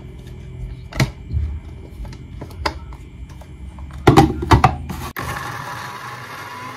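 Plastic blender jar knocking and clicking against the electric blender's base as it is set and fitted on, with a cluster of about four sharp knocks around four seconds in. After a sudden break near five seconds a steady low hiss takes over.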